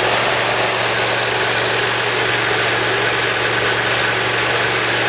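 Briggs & Stratton Intek V-twin mower engine running at an even speed with no surging, its governor freshly adjusted and its carburetor's low-speed jets opened up.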